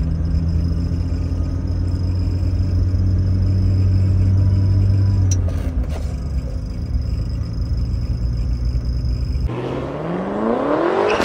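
Mercedes-Benz W124 300E's M103 straight-six engine running, heard from inside the cabin as a steady low drone that eases off about five seconds in. Near the end it gives way to a rising whoosh sound effect.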